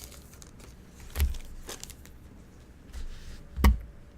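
Two sharp knocks about two and a half seconds apart, with fainter taps and rustles between them, from baseball card packs and cards being handled on a table.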